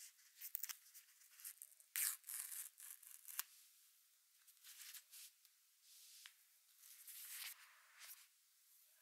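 Faint tearing and rustling as the paper pull-tab seal strip is peeled off an iPhone 14 Pro Max's cardboard box, the sharpest tearing about two to three seconds in, followed by softer rubbing of gloved hands on the box.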